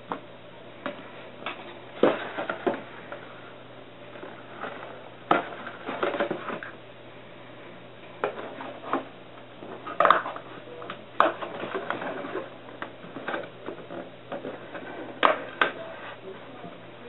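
Scissors snipping into a thin cardboard box, with irregular sharp clicks and knocks as the box is handled on a counter.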